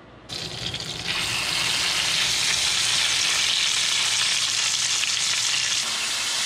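A marinated black bear roast sizzling in a pan of hot bacon grease as it is seared to brown the outside. The frying starts as the meat goes in and swells to a steady sizzle about a second in.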